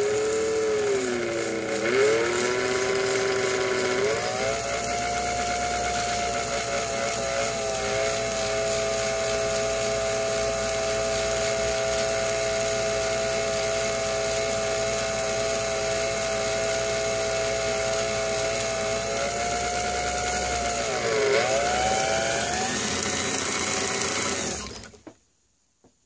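Small electric motor of a watchmaker's lathe whining as it spins a screw held in its collet. The pitch rises and falls over the first few seconds, holds steady for a long stretch, dips and recovers about 21 seconds in, then the motor stops a second before the end.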